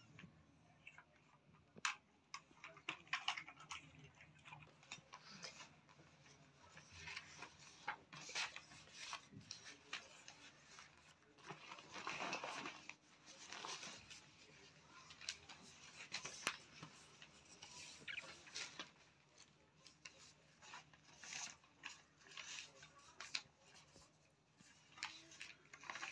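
Faint handling noise: scattered soft clicks and rustles, with one longer rustle about halfway through.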